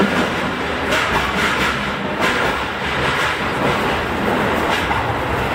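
Tokyo Metro 16000 series subway train heard from its front cab, running into a station: a steady rumble of wheels on rails, with a few clacks over rail joints.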